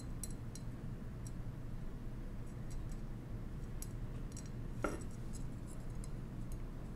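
Faint, scattered small clicks and ticks of a small machine screw being handled and tried against the holes of a screw checker card, with one slightly louder click about five seconds in.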